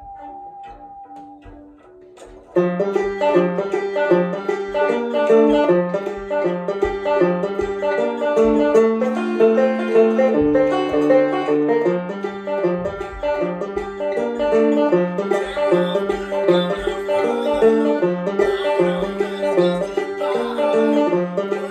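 Five-string resonator banjo, tuned to G minor, picking a fast rolling tune. The playing comes in loudly about two and a half seconds in, after a quiet lead-in.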